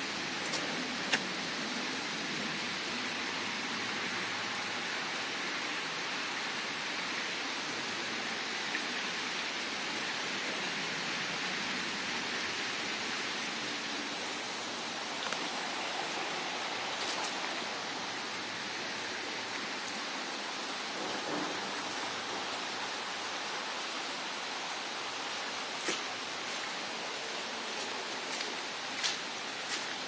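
Shallow woodland stream rushing steadily over stones, with a few short clicks, most of them near the end.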